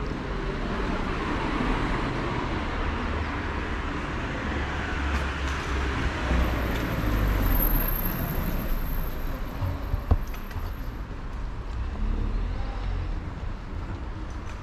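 City street traffic: cars passing, a steady rumble with tyre noise that swells twice as vehicles go by. A single sharp knock about ten seconds in.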